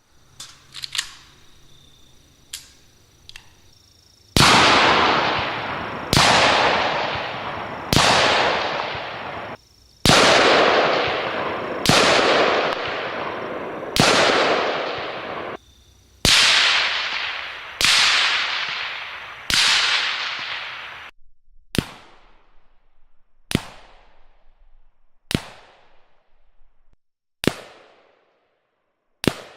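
AK-105 rifle firing single shots about two seconds apart: nine loud shots with long echoing tails, then five quieter, sharper shots with short tails.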